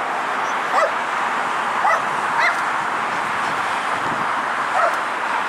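Steady jet-engine noise from airliners at the airport, with a dog yipping four times in short, high yelps.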